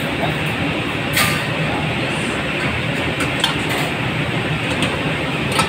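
Steady loud rushing noise of commercial kitchen ventilation. Over it come a few light clinks of stainless steel bowls being handled, about a second in, midway and near the end.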